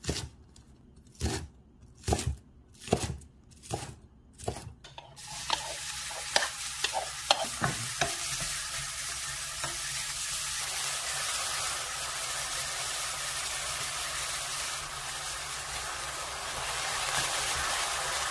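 A knife chopping minari on a wooden cutting board, about seven strokes. Then, about five seconds in, diced vegetables start sizzling in a stainless steel frying pan as they are stir-fried, with a wooden spatula scraping and tapping the pan.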